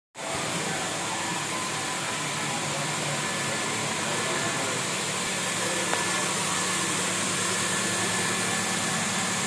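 Reverse osmosis water plant running: a steady machine hum under an even hiss, with one faint click about six seconds in.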